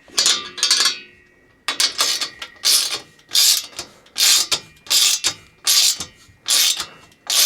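Ratchet socket wrench tightening a nut: about ten back-and-forth strokes, each a quick run of pawl clicks, coming roughly every 0.7 seconds.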